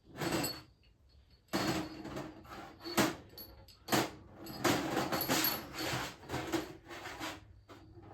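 Metal engine parts being handled on a workbench during reassembly: irregular scraping and rubbing, with a sharp click about three seconds in and another about a second later.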